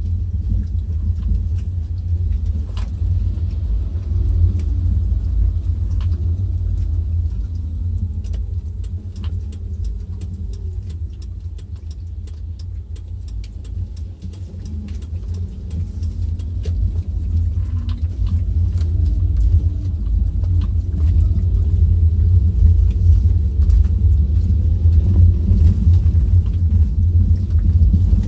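Car on the move heard from inside: a heavy low rumble of road and engine noise, with a faint engine note drifting in pitch and many small clicks and rattles. It eases off slightly in the middle and grows louder again near the end.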